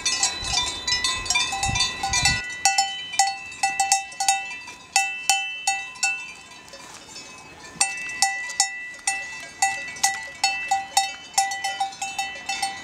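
Cowbells on grazing cows clanking irregularly, several bells ringing at different pitches. One bell close by is struck sharply again and again as its cow moves its head while feeding.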